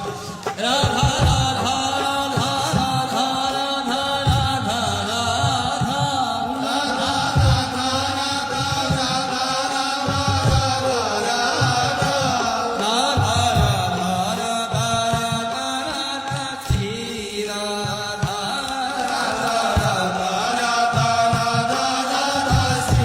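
Radha-Krishna devotional song: a voice chanting a sung melody over sustained instruments and a steady drum beat.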